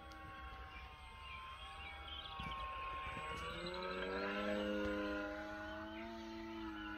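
Radio-controlled model aeroplane's motor and propeller whining in flight. The whine is made of several tones that shift in pitch and grows louder to a peak about four to five seconds in, as the model passes.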